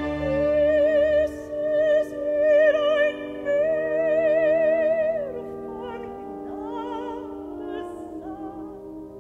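Operatic soprano singing a German art song with orchestra. Through the first five seconds she holds long high notes with a wide vibrato. After that the music grows softer, with the strings sustaining beneath.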